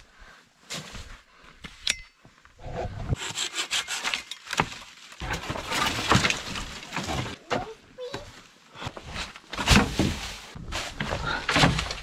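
Dead branches being grabbed and dragged through dry leaf litter: irregular crackling and snapping of twigs with rustling leaves, and several louder cracks.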